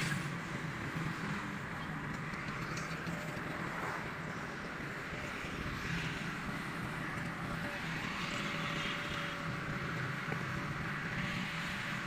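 Steady vehicle noise: a low engine hum under a hiss that swells and fades every few seconds.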